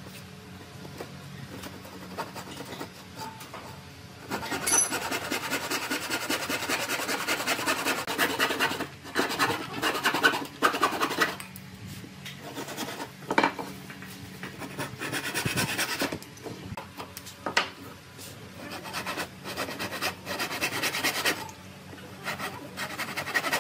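Wood being scraped by hand with an abrasive tool, in fast rasping strokes. It runs steadily from about four seconds in, then comes in shorter bouts with pauses.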